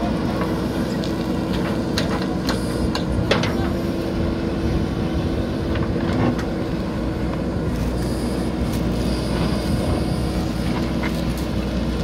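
JCB 3DX backhoe loader's diesel engine running steadily as the backhoe dumps soil and digs into a drain trench, with scattered clicks and knocks of the bucket working through stony soil.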